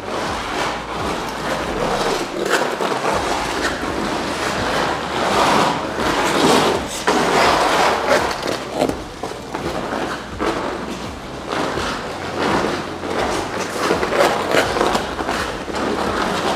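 Ice hockey skate blades carving and scraping the ice during forward crossover strides: a rough hissing scrape that swells and fades with each push, with a few light knocks.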